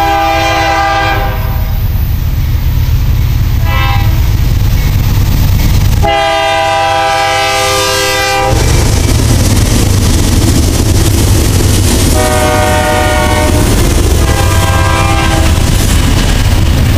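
Diesel freight locomotive horn blowing several blasts: one at the start, a short toot about four seconds in, a long blast about six seconds in and another long one about twelve seconds in. Underneath, the low, steady rumble and wheel clatter of a BNSF intermodal stack train's locomotives and cars passing close by.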